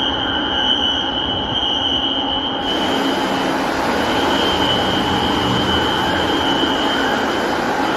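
Fire alarm sounder giving a steady high-pitched tone during an alarm test, breaking off briefly about halfway through. A steady rushing noise runs behind it and gets brighter about two and a half seconds in.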